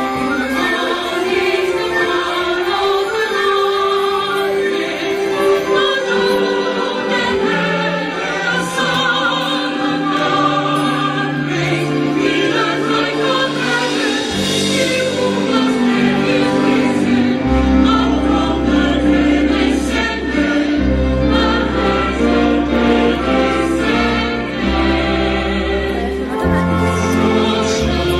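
Choir singing in long held notes; deep low notes join in more than halfway through.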